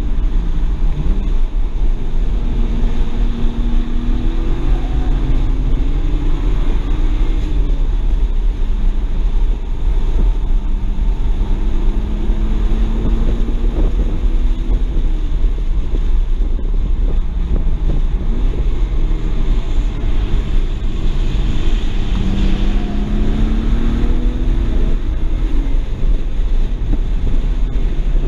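2007 BMW 335i's twin-turbo inline-six heard from inside the cabin under hard driving, its pitch rising in several long pulls and falling away between them, over heavy wind and road noise on the microphone.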